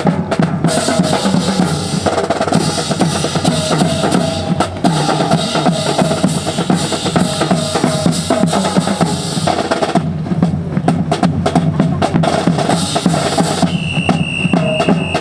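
Marching drum cadence on snare and bass drums, played steadily and quickly for the drill team's routine. A steady high tone joins near the end.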